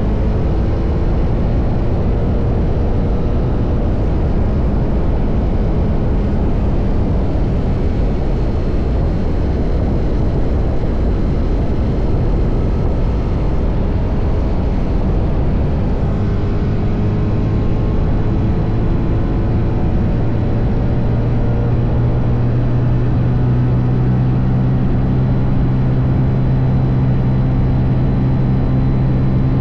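TVS Apache RR310's single-cylinder engine running through its stock exhaust while riding, over a steady rush of noise. Just past halfway its note settles lower and grows stronger.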